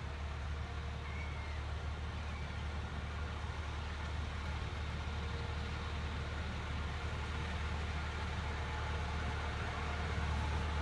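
Miniature railway diesel locomotive running with a steady low drone, growing gradually louder as the train approaches.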